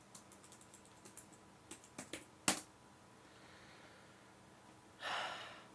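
Light clicks and taps of a computer keyboard and mouse being used, with one sharper click about two and a half seconds in, and a short burst of hissy noise near the end.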